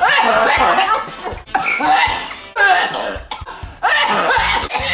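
A woman coughing hard and loudly in about four separate voiced fits, each roughly a second long.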